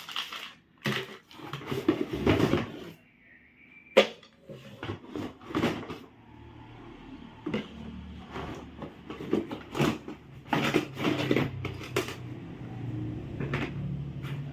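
Objects being handled: a run of knocks, clatters and rustles, with one sharp knock about four seconds in. A steady low hum comes in about halfway through.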